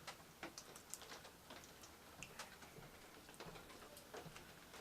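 Faint, irregular light clicks and ticks from a blade and copper wire being handled while insulation is stripped by hand.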